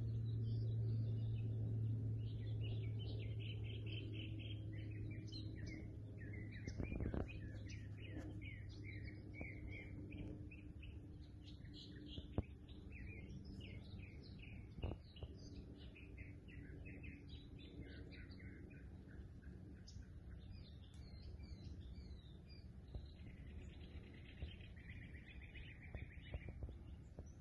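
Small songbirds chirping and twittering, a busy stream of short high notes that keeps going throughout. Under them, a low steady hum fades away over the first several seconds, and a few sharp clicks are heard.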